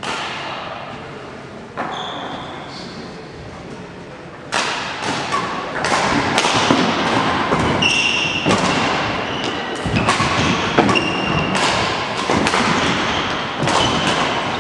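Players moving and playing on an indoor court: repeated thuds and knocks, with short high squeaks like shoes on a hall floor. It grows busier and louder about four seconds in.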